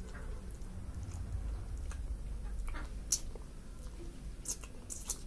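Eating by hand: chewing with wet mouth clicks and smacks, with a few sharp clicks about three seconds in and again near the end.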